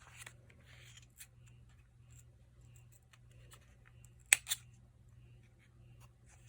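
A small cosmetic lip oil tube and its packaging being handled and opened: faint rustling and light ticks, with two sharp clicks close together about four seconds in.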